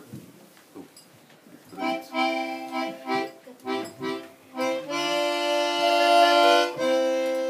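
Small accordion playing a short tune between verses: after a quiet moment, a run of short detached chords, then long held chords with one change of chord near the end.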